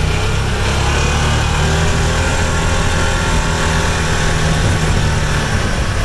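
Engine of a small utility vehicle running steadily as it drives along, with a low rumble underneath.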